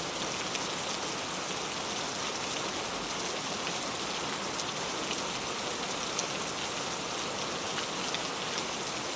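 Gentle rain falling steadily, an even hiss with scattered small drop ticks.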